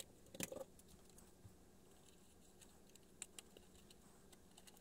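Faint light clicks and taps of a 3D-printed plastic model cabin being handled: a small cluster about half a second in and two more a little after three seconds, otherwise near silence.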